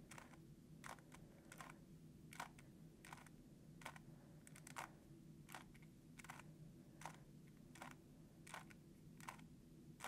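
Faint clicks of a GAN 3x3 speed cube's layers being turned, a little more than one a second, as the R U R' U' sequence is repeated.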